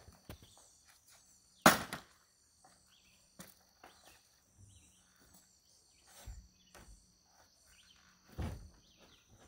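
Knocks and thumps of lumber and a step ladder as a heavy LVL header is worked into place on top of a framed stud wall, the loudest a single sharp knock about two seconds in and heavier thumps near the end. Insects chirr steadily in the background.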